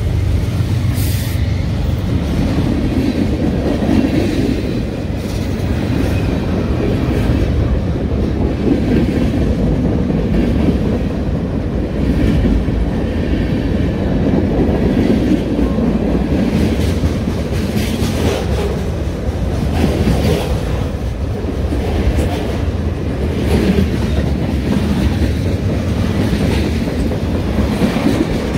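BNSF freight train passing close by. Its two diesel locomotives go by at the start, then covered hoppers and tank cars roll past with a loud, steady rumble and wheels clacking every second or two.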